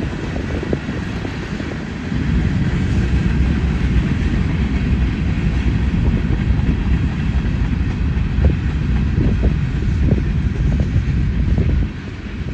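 Union Pacific freight cars rolling past: a steady low rumble of steel wheels on rail, with a few short knocks in the second half. The sound eases slightly near the end.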